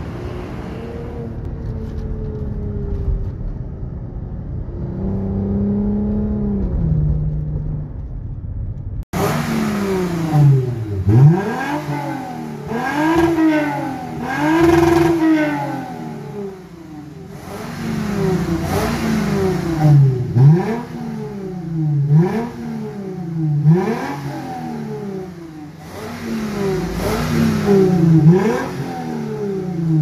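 For about the first nine seconds, a vehicle engine and road noise with slow rises and falls in pitch. Then the Toyota Mark X 250G's 2.5-litre V6 is revved repeatedly at a standstill through an aftermarket valved exhaust with the valve open, for the loud 'racing' sound. Each rev swings sharply up and back down in pitch, about one every two to three seconds.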